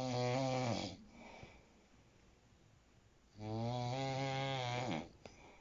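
A person snoring: two loud, pitched snores, the first fading out about a second in and the second starting about three and a half seconds in and lasting about a second and a half, each dropping in pitch as it ends, with faint breathing between them.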